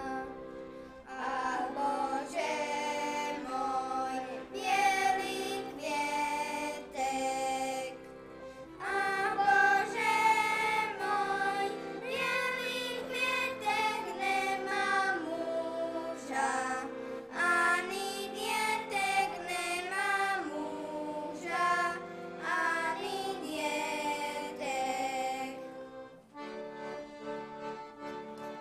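Traditional Slovak folk band playing an instrumental tune, a melody of separate notes over sustained chords. About two seconds before the end it thins to steadier held chords.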